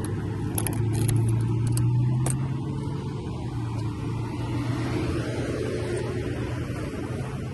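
Car engine running at a steady idle, with a few light clicks about a second in.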